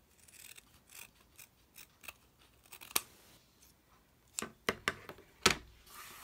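Scissors snipping through faux fur in a series of short, sharp cuts, trimming the excess fur at the edge of a slider; the cuts come quicker and louder in the second half, ending in a heavier knock near the end.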